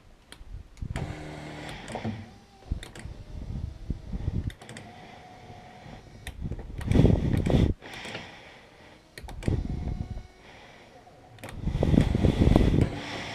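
Electric power-seat motor from a Chrysler 300C seat, run straight off a battery, driving the seat along its track in several short runs, each a steady motor hum. Two louder noisy bursts come about halfway through and near the end.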